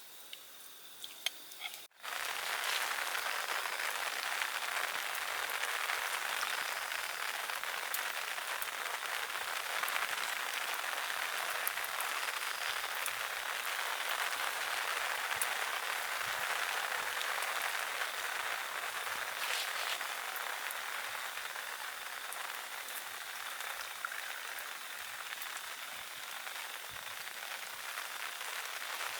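Steady rain falling, an even hiss with scattered sharp drop ticks, coming in suddenly about two seconds in after a short quiet stretch with a few faint ticks.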